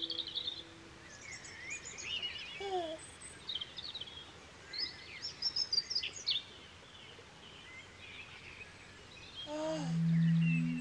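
Birds chirping and twittering in many short, quick, high calls. Near the end, a few sustained low music notes come in.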